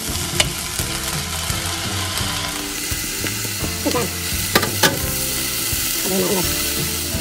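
Fried rice sizzling steadily in a hot frying pan as a beef, pineapple and vegetable filling is tipped in and scraped off a plate with a silicone spatula. A few sharp taps of spatula on plate and pan are heard, two of them close together about halfway through.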